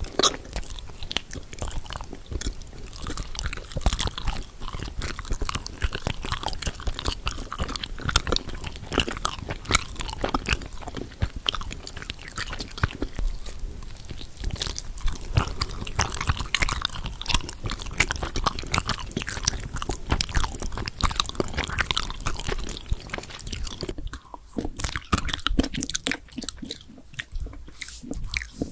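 Close-miked eating: crunchy bites and chewing, a dense run of crackling clicks that thins out and turns softer for the last few seconds.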